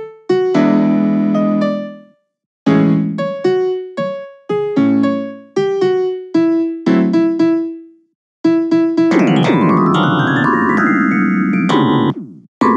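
Sampled MIDI piano playing short phrases of notes and chords with brief pauses, then, about eight and a half seconds in, a dense 'dark MIDI' cluster of very many notes at once whose pitch climbs and falls in an arc, the sound of a note-drawn emoji shape being played; it cuts off sharply about twelve seconds in.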